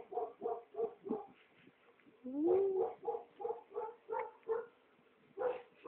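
A dog whining and yipping in short pitched calls, about three a second, with one longer, louder rising whine about two and a half seconds in.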